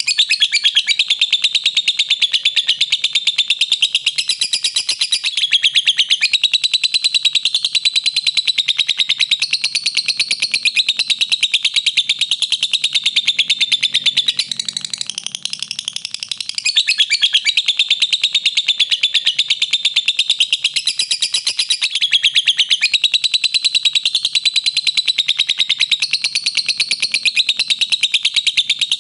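Lovebird singing its long ngekek: a continuous, high-pitched chattering trill of very rapid notes run together, dipping briefly in strength a few times.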